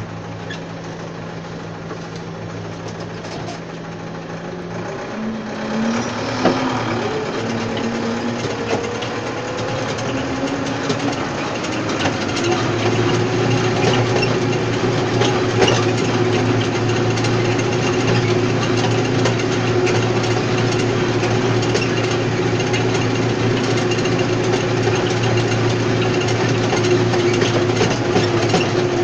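Tractor engine running while pulling a tine stubble cultivator through soil. The engine note climbs between about five and twelve seconds in, then holds steady at higher revs, with scattered knocks and rattles from the machinery.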